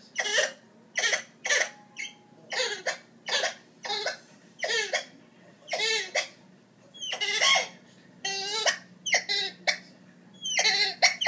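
A person laughing in a run of short, breathy giggling bursts, about one every half second to second.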